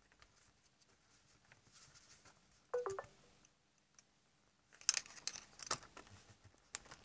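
Small screwdriver prying at the metal casing of a Linn Axis turntable motor: faint scratching and light clicks, then a cluster of sharper metallic clicks and scrapes about five seconds in.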